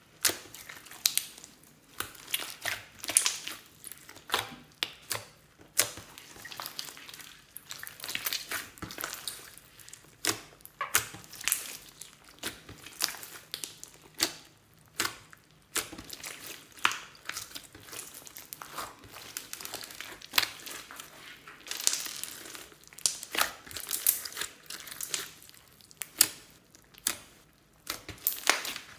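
Hands squeezing, kneading and poking a large mass of glossy slime mixed with foam beads and glitter, giving a dense, irregular run of crackling pops and squelches.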